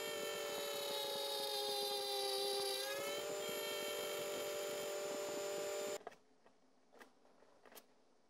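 Small milling spindle's motor whining steadily while an end mill cuts a slot in a metal part; the pitch sags under load a few seconds in, then steps back up. The whine stops abruptly about six seconds in, leaving a quiet background with a few faint clicks.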